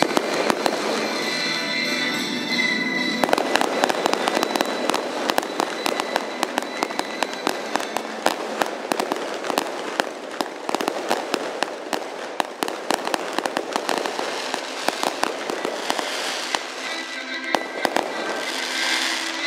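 Fireworks display: dense rapid crackling and popping from aerial shells and spark fountains, thickest from a few seconds in until near the end, over music.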